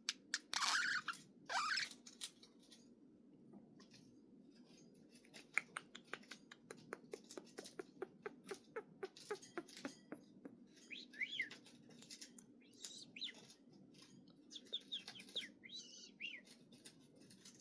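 A budgerigar chirps loudly at the start. This is followed by a fast run of small sharp clicks, about five a second, and then several short warbling chirps.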